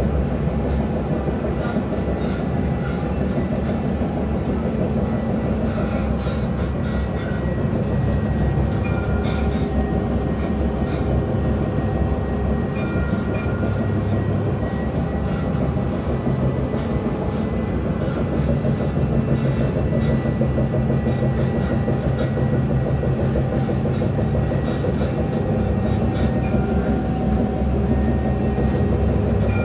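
Jerusalem city tram running on its rails, heard by a rider on board: a steady rumble of wheels on track with a thin steady whine and faint scattered clicks.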